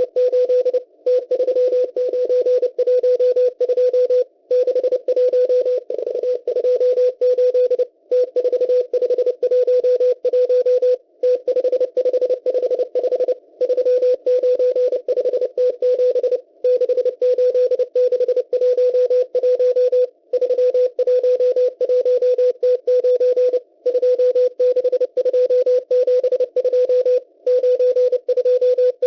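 M12 numbers station sending numbers in Morse code over shortwave: a steady mid-pitched tone keyed on and off fast over receiver hiss, with a short pause between groups every three to four seconds.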